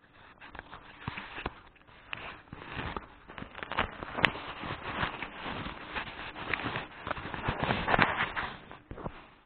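Rustling and a rapid, irregular run of knocks and clicks from a small handheld camera being jostled against its carrier's clothing while he walks, with footsteps mixed in. It grows louder toward the end and then stops abruptly.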